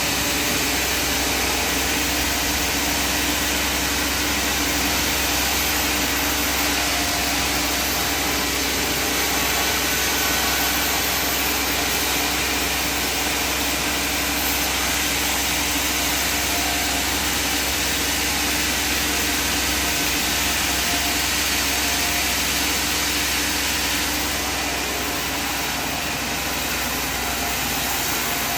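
Sawmill machinery running: a steady engine drone under an even, constant hiss.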